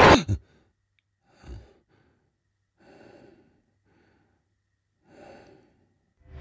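A loud sound cuts off abruptly right at the start. Then a man breathes heavily in three faint, laboured breaths spread over the next few seconds.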